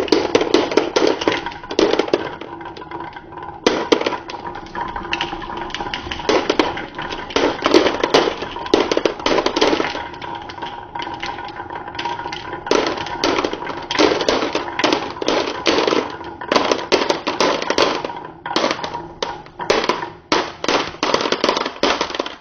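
Many glass marbles rolling and clacking together along a marble run, a dense rattle of clicks that thins for a few seconds and then picks up again.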